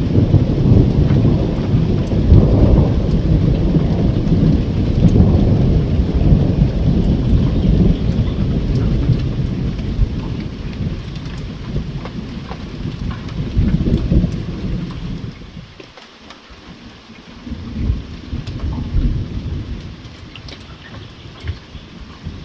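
Thunder rumbling over steady rain. A long, deep roll dies away about two-thirds of the way through, and a shorter rumble follows.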